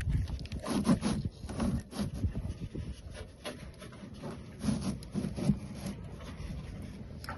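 Irregular rubbing and scraping as the oil filter housing cap of a 2007 Lexus ES350 is twisted loose by hand. The strokes ease off about six seconds in.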